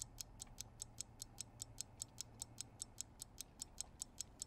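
Faint, fast, even ticking of a clock, about five ticks a second, over a low steady hum.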